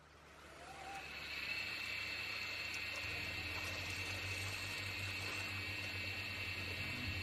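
Small electric fan motor spinning up over about a second after its shaft is flicked by hand, then running steadily with a low hum and a high whine. A motor that runs only when helped to start could have a defective starting capacitor.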